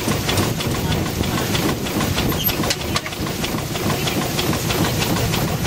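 Steam launch's boiler and steam plant running: a steady hiss and low rumble with a rapid, irregular mechanical clatter.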